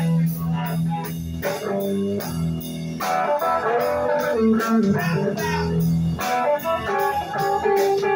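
Live blues-rock band playing: electric guitar lines over bass and a drum kit keeping a steady beat.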